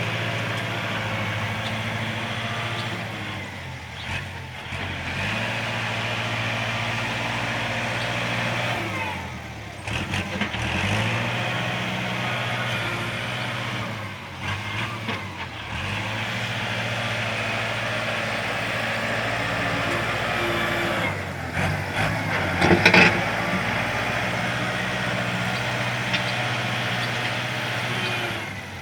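Tractor's diesel engine running steadily, its pitch sagging and picking up again several times as it takes and sheds load. A brief loud clatter comes near the end.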